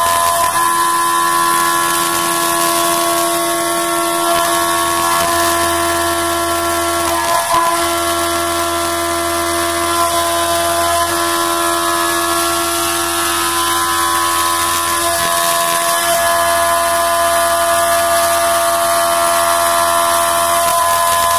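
CNC machining centre face-milling an aluminium block under flood coolant: a steady, loud cutting whine made of several high tones over a hiss. The whine dips and changes briefly about every seven seconds as the cutter moves between passes.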